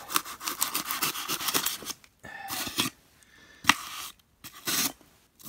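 A blade scraping and cutting through a thick white foam disc to widen its centre hole. It makes a quick run of short strokes for about two seconds, then a few slower, separate strokes.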